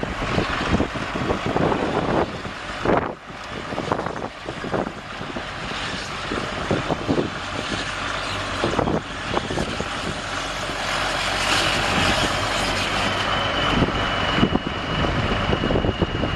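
Cummins 6BTA turbo diesel of a tracked drill rig running. A high, steady whine joins in about 11 seconds in and holds.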